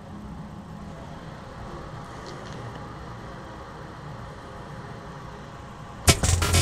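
A low, steady hum with a few faint clicks, then loud, aggressive music cuts in suddenly about six seconds in.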